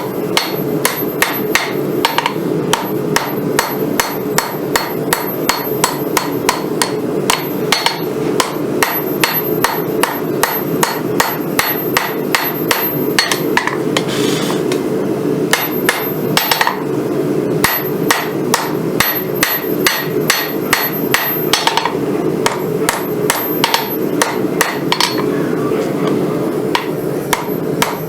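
Hammer blows on steel at an anvil, a steady run of strikes about two to three a second with a couple of short pauses, over a steady low hum. This is the Damascus billet being hammered out into a Bowie knife blade.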